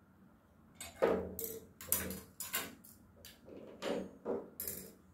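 A spoon tapped gently against something hard, making the quiet sound: a string of about a dozen light, uneven taps.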